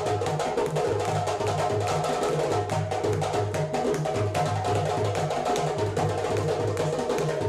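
West African djembe ensemble playing live: several hand drums struck in a dense, steady interlocking rhythm over a repeating two-note bass pattern.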